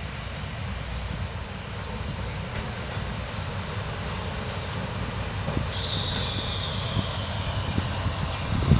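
Narrow-gauge diesel locomotive approaching at low speed, its engine's low rumble growing steadily louder. About six seconds in, a high squeal rises over it. Near the end the first knocks of wheels over the rail joints come in.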